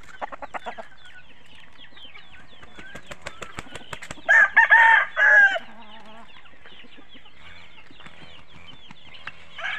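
A gamecock crowing once, a loud call in three parts about four and a half seconds in, over steady clucking and chirping from other fowl in the yard.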